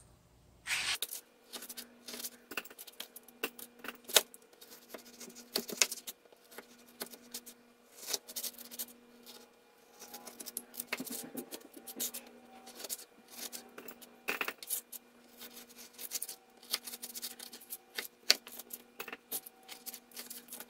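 Irregular small clicks, taps and rubbing as partly frozen beef slices are pulled and pried apart into strips on a plastic cutting board, the knife now and then tapping the board.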